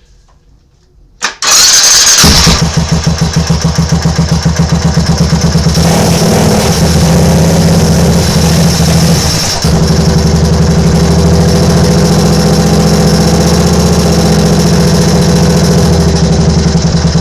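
Suzuki Boulevard motorcycle engine being started: a click, a brief burst of starter cranking, then the engine catches about two seconds in and settles into a steady, pulsing idle, with a short dip in level about nine and a half seconds in. It is the first start after a timing chain replacement, and the engine runs.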